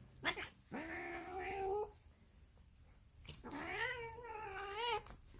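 Polydactyl domestic cat giving two long, drawn-out meowing calls, the second longer and wavering up and down in pitch. Each call is preceded by a short click.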